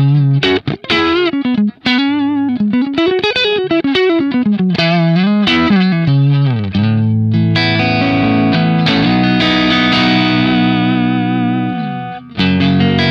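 Clean electric guitar, a Strat-style guitar played through a Kemper profile of a Fender Twin Reverb amp. It plays a melodic line of single notes with wavering vibrato, then sustained chords that ring out from about seven seconds in. Near the end a chord is cut off and a new one is struck.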